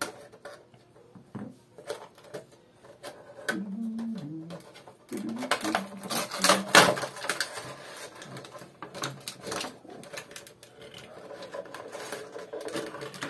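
Cardboard Funko Pop window box and its plastic packaging being handled: scattered clicks, taps and rustling, busiest in the middle with one sharp clatter about seven seconds in.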